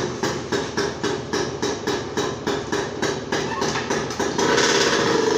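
Motorcycle engine running at idle with a slow, even pulse of about three beats a second. About four seconds in it changes to a steady, louder run at higher revs.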